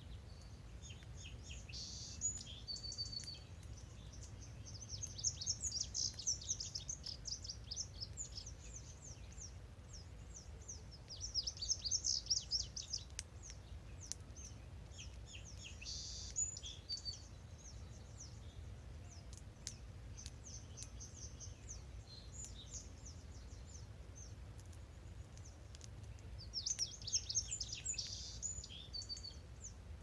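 A songbird singing short, rapid, high-pitched phrases, one every few seconds, over a steady low background rumble.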